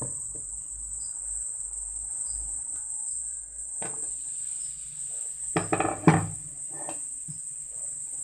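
A glass pan lid is lifted off and set down with a short clatter a little past halfway, with a click shortly before it. A steady high insect trill, like crickets, runs underneath throughout.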